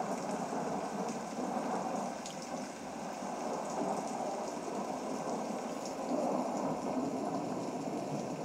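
Steady rain, a storm ambience with no single loud event standing out.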